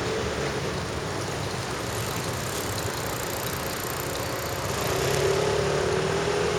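A motor vehicle running nearby: a steady engine hum with a wavering tone that gets louder about five seconds in.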